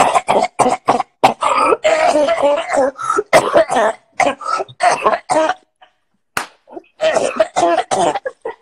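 A person's loud, harsh wordless yelling and retching-like vocal noises, in many short bursts.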